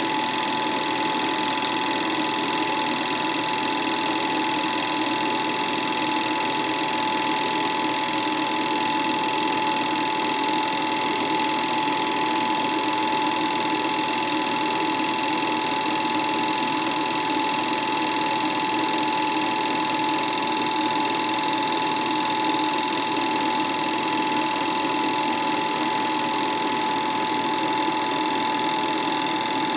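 Film projector running: a steady mechanical whir with a constant whine that does not change.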